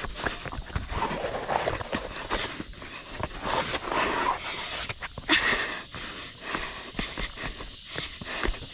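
A runner's heavy panting, with shoe footsteps knocking and scuffing on bare rock while descending the mountain.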